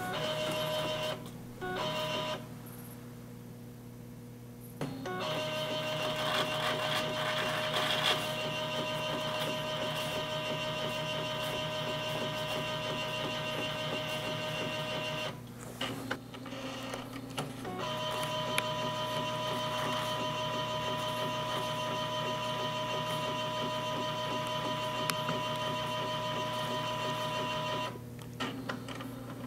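Epson R2000 inkjet printer's motors running with a steady whine in several long stretches separated by short pauses. This is a cleaning cycle pumping waste ink out through the tube into the external bottle.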